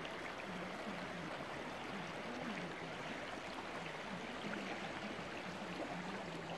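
Shallow rocky river running over stones in riffles: a steady, even babble of flowing water.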